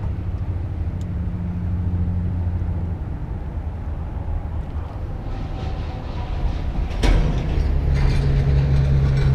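An engine running with a low, steady hum. About seven seconds in there is a knock, and the hum turns louder and slightly higher.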